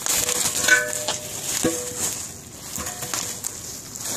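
Bubble wrap crinkling and crackling as it is gripped and handled around an air tank, with a light knock about one and a half seconds in.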